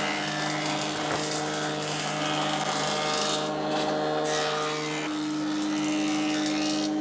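Jointer (surface planer) running with a steady motor hum while its cutterhead planes small oak pieces. The cutting noise drops away briefly a little past halfway and again near the end, between passes.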